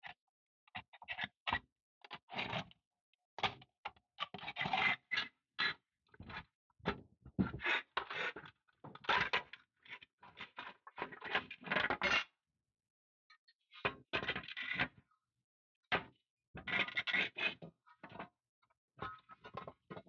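Irregular knocking, clattering and scraping as the dismantled parts of a rusty vintage Tonka toy van are handled, shifted and set down on a wooden workbench. The parts are the plastic interior tub and rusty pressed-steel pieces.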